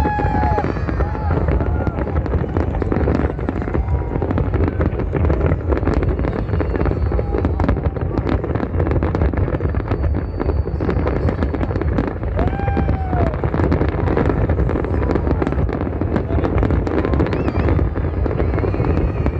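Large fireworks display going off without pause: a dense barrage of bangs and crackling over a deep rumble. Voices from the watching crowd, with a couple of short shouts, rise over it.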